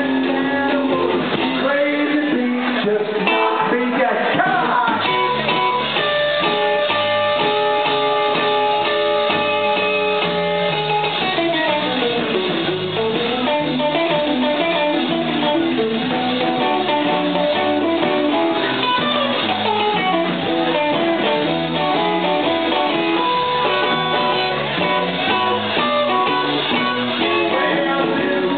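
Live rock band playing an instrumental stretch: electric guitar with long held notes and sliding bends, over bass guitar and drums.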